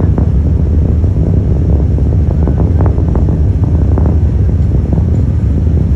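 Starship prototype's Raptor rocket engines heard from a great distance: a loud, steady low rumble with faint crackle near the middle.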